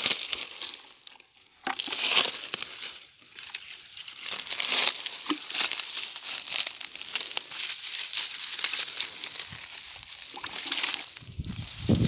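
Footsteps crunching through dry leaf litter and dry grass: irregular crackling steps with short pauses between them.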